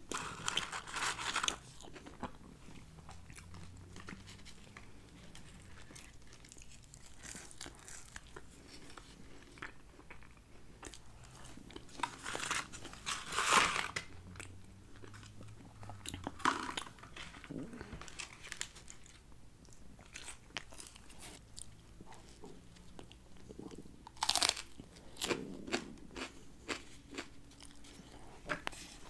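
Close-miked eating: chewing and crunching fries and biting into a cheeseburger, in scattered bursts. A louder rustle comes about halfway through as a cardboard fry carton is handled.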